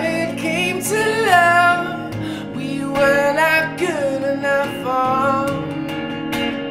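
Music: a song with a woman singing drawn-out, sliding notes over acoustic guitar.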